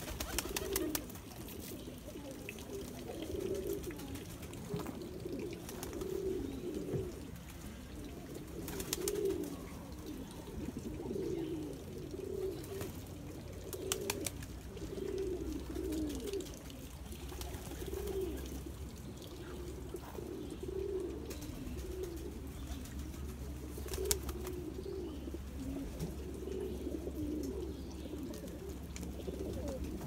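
Several pigeons cooing over and over in a low, warbling rumble, with a few sharp clicks among the calls.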